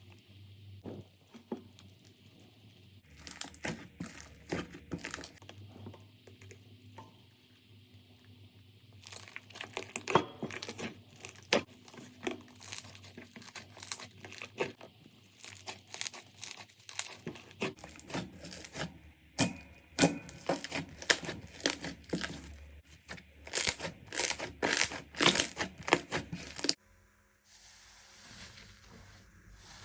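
Hands squeezing and stretching slime, making a dense run of crackling, popping clicks that comes in separate stretches, changing abruptly several times.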